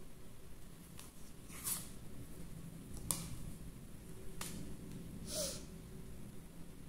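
Lenormand cards being handled: a few light snaps and soft swishes as cards are drawn from a fanned deck and laid down, over a faint low hum.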